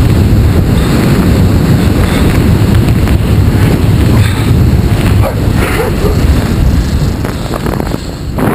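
Wind buffeting the microphone of a camera on a mountain bike rolling fast down an asphalt lane, a heavy steady rumble mixed with tyre noise. A few short, sharper sounds rise above it about two-thirds of the way through.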